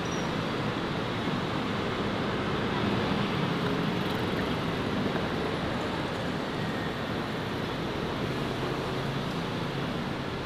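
Steady city street traffic noise: a continuous wash of passing vehicles, with a low engine hum that swells a little in the middle and again near the end.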